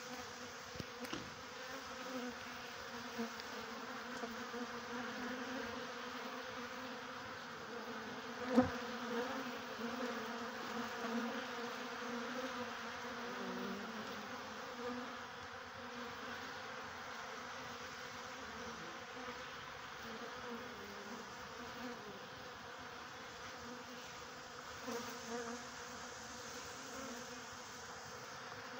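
Mass of honeybees buzzing steadily as they crowd an open-feeding bowl of sugar. One sharp knock about a third of the way through.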